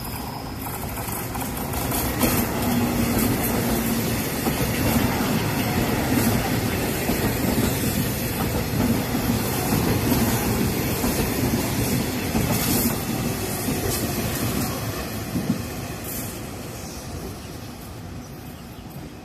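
Taiwan Railways EMU1200 electric multiple unit passing by: a rumble and rail noise that swells about two seconds in, runs steadily with repeated wheel clicks, then fades away over the last few seconds.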